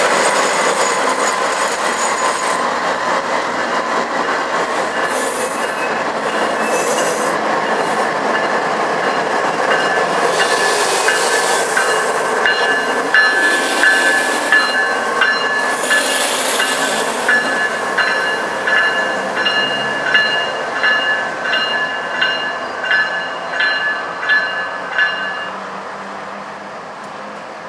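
Freight train rolling past on steel wheels, with high wheel squeal over a steady rumble. From the middle on comes a regular clack of wheels over rail joints, about one or two a second, which dies away near the end.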